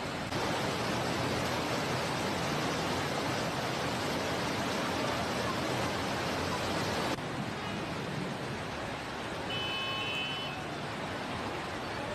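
Floodwater rushing: a steady, dense rushing noise that jumps louder just after the start and drops abruptly about seven seconds in. A brief high-pitched tone sounds about ten seconds in.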